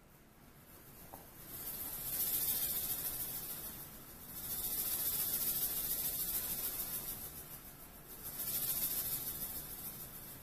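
A soft high hiss that swells and fades three times, each swell lasting two to three seconds.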